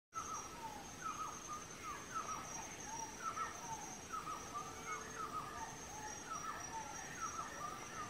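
Red birds-of-paradise calling at their display tree: a rapid series of short falling notes, about two a second and sometimes overlapping, over a steady high insect drone.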